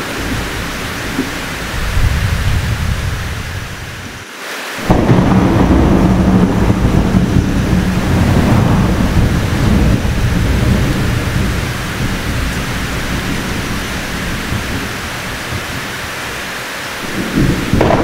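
Thunderstorm: heavy rain falling steadily with thunder rumbling. About five seconds in, after a brief lull, a loud thunderclap breaks in and its rumble rolls on for several seconds, slowly fading. Another rumble builds near the end.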